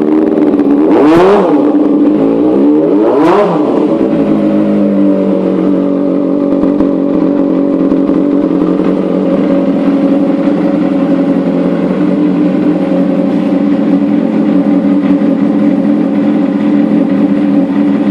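Motorcycle engine revved in two quick blips, about one second and three seconds in, then idling steadily.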